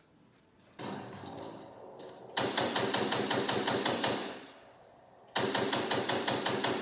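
Motorized Nerf blaster firing full-auto in two rapid bursts of about eight shots a second. The first burst starts a little after two seconds in and stops about two seconds later; the second starts near the end. A steadier whirring sound sets in about a second in, before the first burst.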